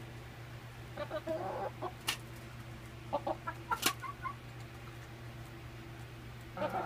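Young hens clucking in short, chattering bursts, with two sharp clicks and a steady low hum underneath.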